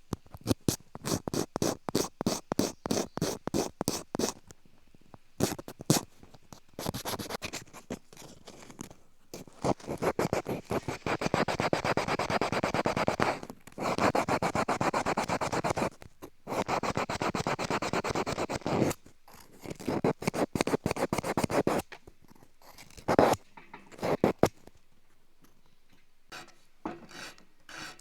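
Bamboo being scraped and filed while an ear pick is shaped. Quick repeated strokes give way about ten seconds in to a dense, continuous rasping that breaks off briefly, then goes back to scattered strokes and fades near the end.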